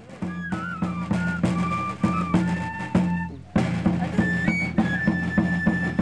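Andean traditional instrumental music: a high melody line over a steady drum beat of about three strokes a second and a low held tone. The music dips briefly about three and a half seconds in, then carries on.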